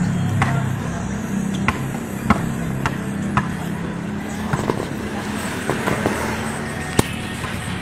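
A basketball bouncing and sneakers hitting a concrete outdoor court: about ten sharp, irregular knocks, over a steady low hum.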